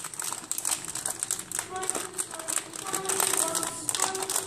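Plastic sweet wrapper crinkling as it is handled and torn open, with a fast run of small crackles.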